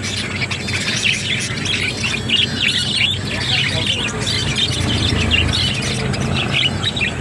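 Many small caged birds chirping in quick, overlapping high calls, with a low steady hum beneath.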